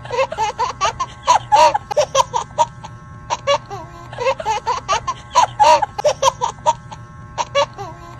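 A looped comedy laughter sound effect of high-pitched giggling and laughing, repeating about every four seconds over background music.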